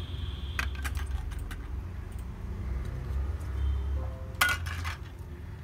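Sharp metal clicks and rattles of an LGA1700 CPU socket's retention lever and load plate being released and swung open. The loudest clatter comes about four and a half seconds in, over a steady low hum.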